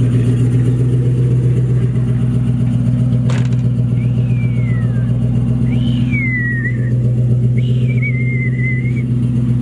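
Tow truck engine idling steadily, a constant low hum. Several high, falling whistles sound over it from about four seconds in, with a single sharp click just before them.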